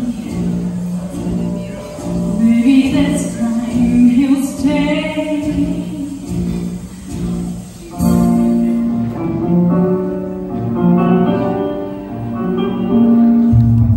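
A woman singing a show tune into a microphone over instrumental accompaniment; from about eight seconds in, the accompaniment swells into longer held chords.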